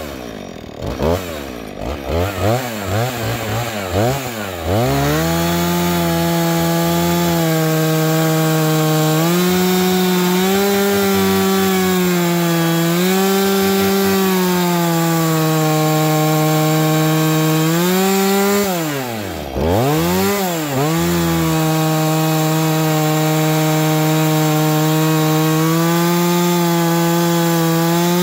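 Husqvarna 445 chainsaw's two-stroke engine, fitted with a ripping chain, blipped up and down several times and then held at full throttle in a long rip cut along a log, its pitch sagging slightly under load. About two-thirds of the way through, the revs drop sharply and climb straight back before the cut carries on.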